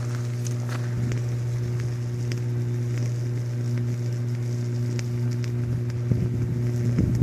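Downed, still-live power line arcing to the ground: a loud steady electrical buzz with scattered crackles and snaps. The sputtering grows heavier and louder near the end.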